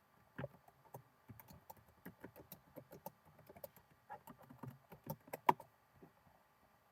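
Typing on a computer keyboard: an irregular run of key clicks, several a second, that stops about six seconds in.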